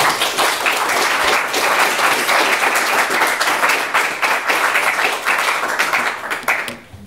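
Audience applauding: many people clapping at once in a dense patter that fades out shortly before the end.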